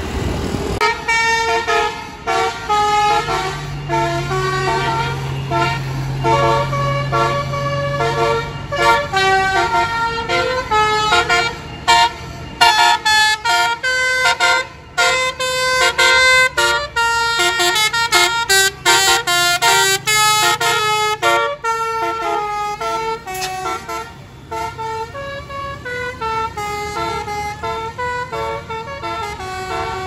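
Bus basuri telolet horn playing a fast tune of separate, stepped notes, starting about a second in and busiest in the middle.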